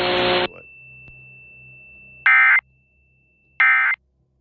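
A hiss cuts off about half a second in. Then come two short, loud bursts of warbling data tones about a second and a half apart: the SAME end-of-message signal that closes an Emergency Alert System / NOAA Weather Radio warning.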